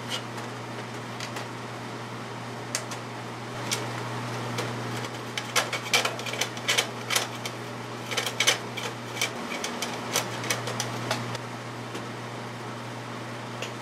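Hand screwdriver driving screws into the nut plates of a metal aircraft landing light assembly: irregular small clicks and scrapes, busiest through the middle. A steady low hum runs underneath.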